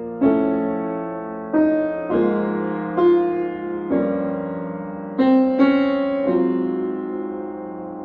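Piano playing a slow chorale: full chords struck one after another, about eight in all, each dying away, the last held and fading from about six seconds in.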